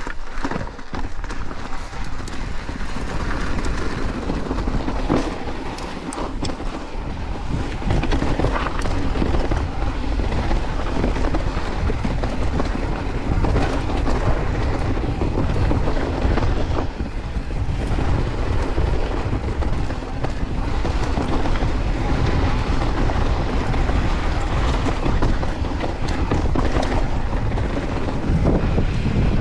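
Santa Cruz Bronson C carbon full-suspension mountain bike ridden fast down a rough dirt trail: continuous tyre rumble with constant rattling and clatter from the bike, a little louder from about eight seconds in.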